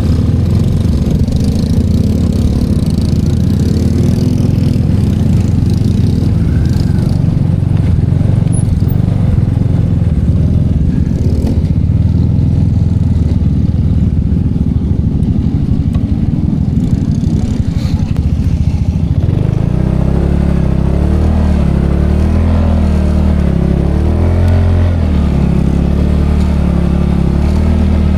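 Small motorcycle being ridden, its engine running under a steady rush of noise. About two-thirds of the way through, the engine note comes through more clearly, rising and falling with the throttle.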